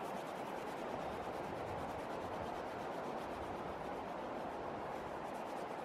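Steady rush of flowing river water, with a light, rapid rustle of dried herbs crumbled between fingers over a pot of soup.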